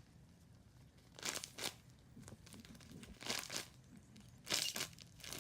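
Plastic crinkling three times in short bursts: a homemade squishy made from a stuffing-filled, taped Ziploc bag being handled and squeezed.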